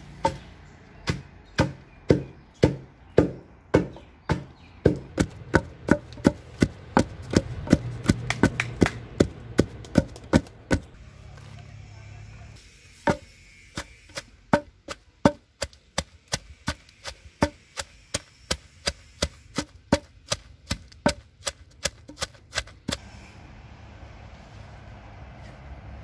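Long wooden pestle pounding salt, chili and red onion in a mortar: regular thuds about two a second. They stop for a moment about eleven seconds in, then start again at the same pace.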